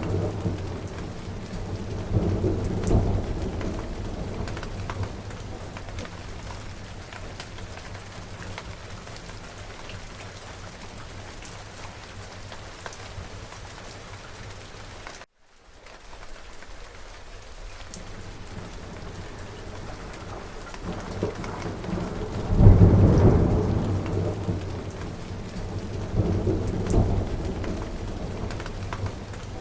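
Steady heavy rain with thunder. A rumble fades out in the first few seconds, and a loud thunderclap about three-quarters of the way through rolls on for several seconds with a second swell. The sound cuts out for an instant about halfway.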